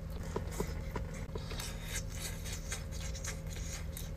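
Light scraping and rustling of takeout food and its container being handled, made up of many small irregular clicks and rubs, over a steady low hum.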